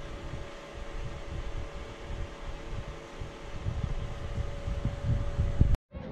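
Steady mechanical hum with a faint steady whine, like a small fan running, under uneven low rumbling; it cuts off abruptly near the end.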